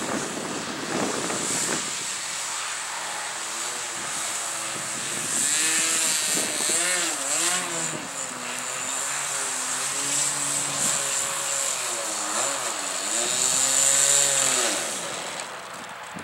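RC model airplane's small engine running at low throttle while it taxis on grass, its pitch rising and falling repeatedly as the throttle is worked, then dying down near the end.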